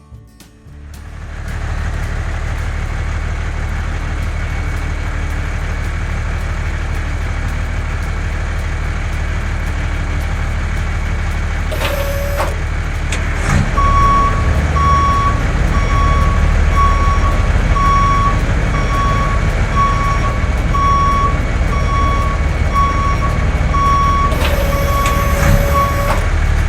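Heavy diesel construction vehicle engine running steadily, growing louder about halfway through as a reversing alarm starts beeping about once a second. Two brief hisses, one just before the beeping starts and one near the end.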